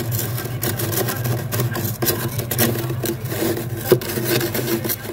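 Kitchen knife blade scraping through thick, soft freezer frost in repeated rasping strokes, with a sharp click about four seconds in and a steady low hum underneath.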